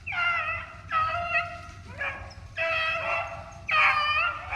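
Rabbit hounds baying on a rabbit's trail, working out the scent. About five drawn-out, pitched bawls come at roughly one a second.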